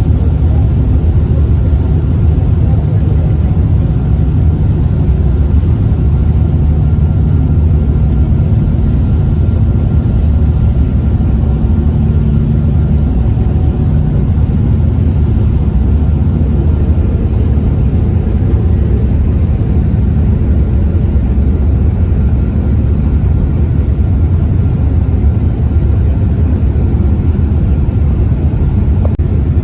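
Passenger ferry's engines running with a steady low rumble heard on board, a few faint steady tones riding above it.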